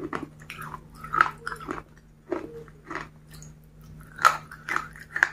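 Close-miked chewing of a chocolate-dipped bite: irregular crisp crunches and mouth clicks, a few a second, with the loudest bites about one second in and about four seconds in.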